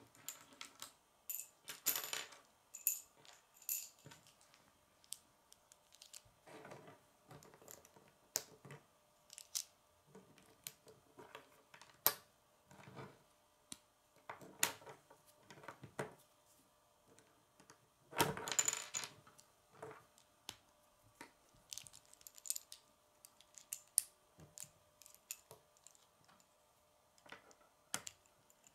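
Plastic K'nex rods and connectors clicking and clattering as they are handled and snapped together by hand. Scattered sharp clicks, with louder rattles about two seconds in and again past the middle.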